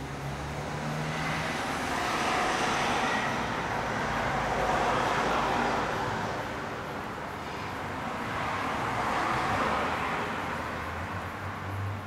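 Road traffic: two vehicles passing, each a rush of tyre and engine noise that swells and fades. The first peaks about halfway through and the second a few seconds later.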